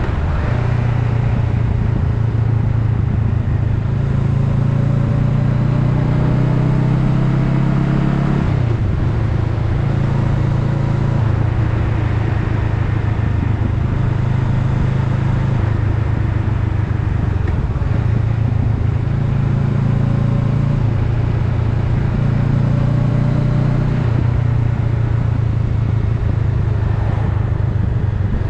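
Honda Rebel 500's parallel-twin engine running under way, heard from on the motorcycle with wind and road noise. The engine note climbs for a few seconds, then drops sharply about eight seconds in, and rises and falls with the throttle after that.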